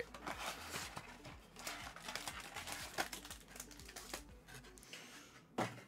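Cardboard blaster box being opened and its wrapped trading-card packs rustling and crinkling in gloved hands, with a few sharp clicks and a louder knock near the end.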